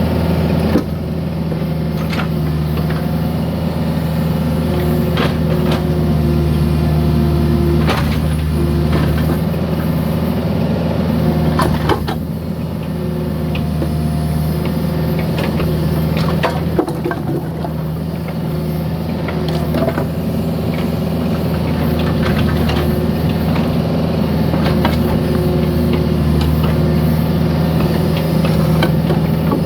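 Mini excavator's diesel engine running steadily, with a higher whine that comes and goes as it works and scattered knocks and scrapes of broken concrete being dug out and moved.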